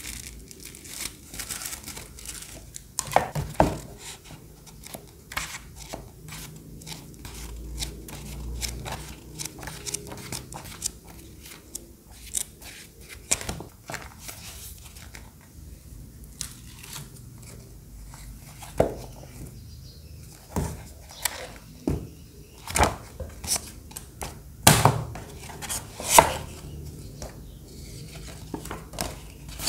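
Hands handling paper and plastic: a crinkling plastic sleeve, the pages of a manga volume being flipped and glossy posters being shuffled. Scattered short taps and clicks run throughout, the loudest a little before the end.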